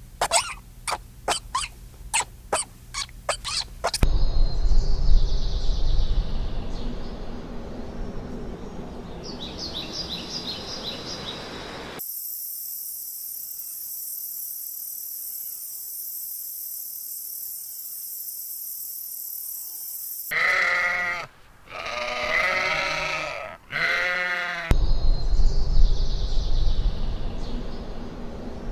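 Bleating from farm livestock: three wavering calls in quick succession about twenty seconds in. Before them come a quick run of sharp strokes, a stretch of outdoor background noise and a steady high hiss, with more outdoor noise after the calls.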